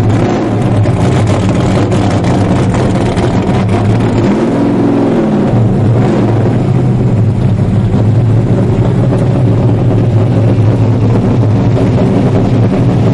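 A loud engine running with a steady low note. About four seconds in, its pitch swells up and falls back over a second or so.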